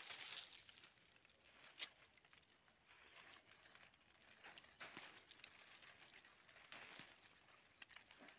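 Faint rustling and crackling of custard apple bush leaves and twigs as hands reach through them to pick the fruit, with a few light clicks and one sharper click about two seconds in.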